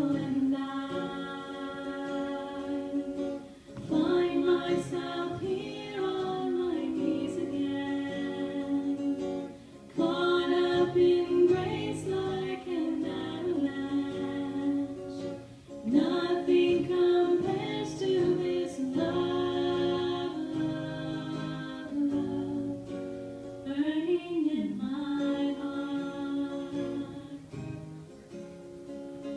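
A female voice singing a worship song, accompanied by strummed acoustic guitar.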